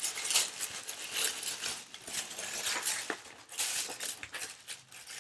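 Tissue paper rustling and crinkling as it is peeled open and folded back, crackling on and off, with a louder stretch a little before the end.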